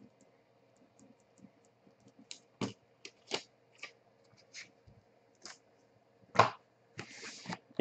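Hands handling a cardboard trading-card box and a plastic-cased trading card: scattered light clicks and rustles, a sharper knock about six seconds in, and a short scrape near the end.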